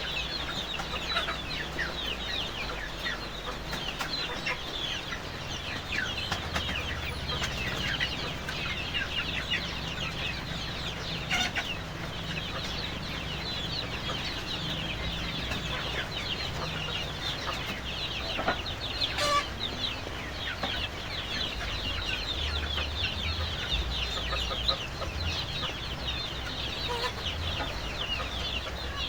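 A flock of village chickens (ayam kampung) calling continuously, a dense overlapping chorus of short, high, falling cheeps and clucks.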